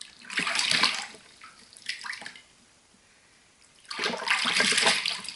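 Bathwater splashing as a hand scoops water over a kitten standing in a bathtub, in two loud bursts: one about half a second in and a longer one about four seconds in, with a smaller splash near two seconds.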